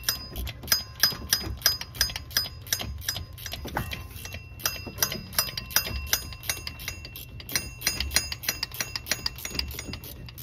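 Socket ratchet clicking in quick runs of ticks, several a second, as it is swung back and forth to back out a stubborn stud with damaged threads from the A/C compressor mount.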